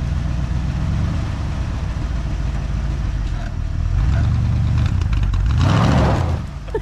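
A 1984 Ford F-150's carbureted 302 V8 running as the truck is driven, the engine getting louder about four seconds in and loudest shortly before the end as it pushes against front brakes that drag from seized calipers.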